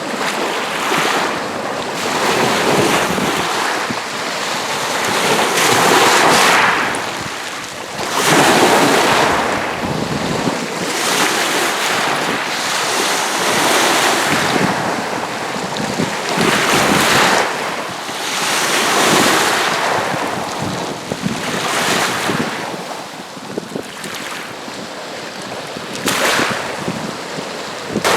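Small lake waves on Green Bay washing against the shore, each swell rising and falling away every two to three seconds.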